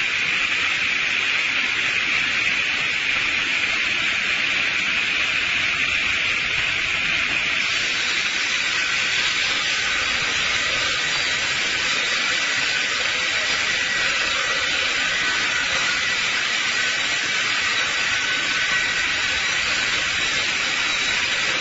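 Electric multiple-blade rip saw running steadily as it cuts a round log into timbers: an even, hiss-like sawing noise, with faint steady whining tones coming in about halfway through.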